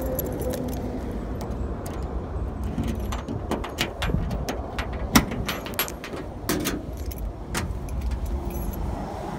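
A bunch of car keys jangling and clicking as a key is worked into the trunk lock of a 1974 Ford Gran Torino and turned, with a run of sharp clicks and a loudest click about five seconds in as the lid unlatches. A steady low rumble lies underneath.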